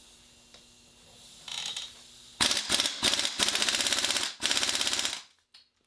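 Impact wrench hammering on a stuck fastener in several short bursts of rapid, even rattling.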